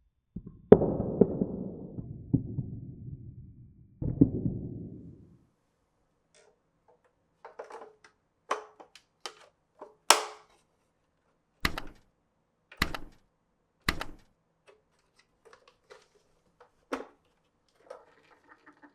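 Glass marbles running down a wooden marble run. Two rolling rumbles each start with a knock and fade out over a second or more, then come scattered clicks and wooden knocks as marbles drop and hit blocks and each other, with three heavier knocks about a second apart near the middle and a faint rattle near the end.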